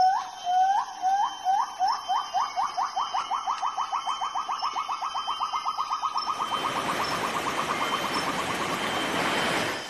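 A hornbill calling: a series of rising whistled hoots, about half a second apart at first, that speed up into a fast, even run of notes climbing slightly in pitch. From about six seconds in, the rush of a river rapid joins it, then cuts off just before the end.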